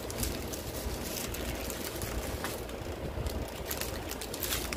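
Small plastic bags of diamond-painting drills crinkling a few times as they are handled, over a steady low background hum.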